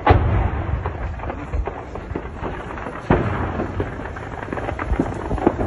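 Explosions: a heavy boom at the start and another about three seconds in, each followed by a low rolling rumble, with a few smaller cracks near the end.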